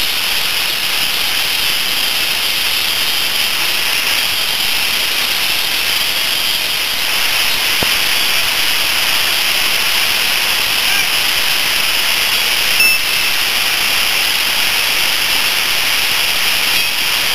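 A loud, steady hiss with most of its energy in the upper range, and one short click about thirteen seconds in.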